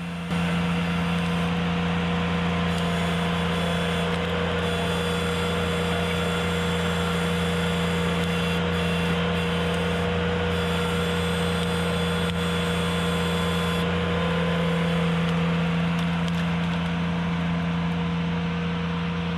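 Ventrac compact tractor's engine running steadily at a constant speed.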